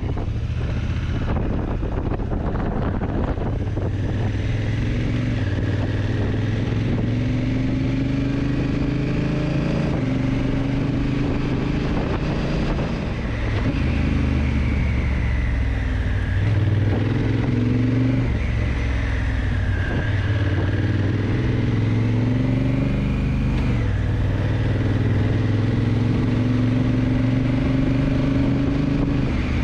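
Honda CRF1000L Africa Twin's parallel-twin engine running on the move. Its note climbs and then drops back several times, as the dual-clutch gearbox shifts.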